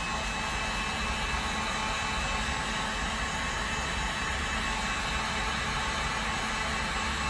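Electric heat gun running steadily: a rush of blown air with a thin, steady high whine from its fan, heating a trimmed, partly lifted adhesive grip wrap so that it bonds back down.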